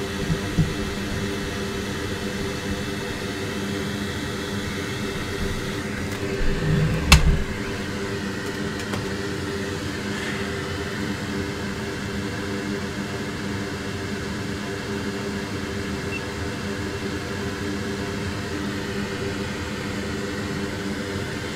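Steady whir of the soldering bench's fans, a hum with several low steady tones. A few knocks break it: light ones about half a second in and louder ones around seven seconds in.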